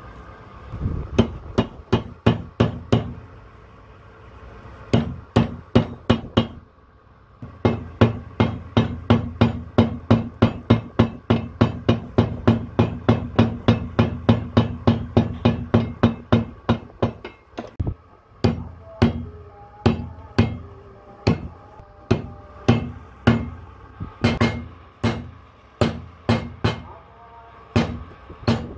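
Hammer blows on a steel punch held against the copper commutator of a truck starter motor armature, struck in quick runs of about three a second with short pauses, and more spaced out near the end.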